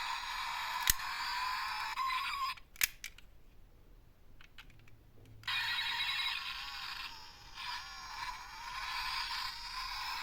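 Miniature toy cars rolling down a slope track: a steady rolling noise with a sharp click about a second in. It breaks off after a couple of clicks at about two and a half seconds and starts again about three seconds later.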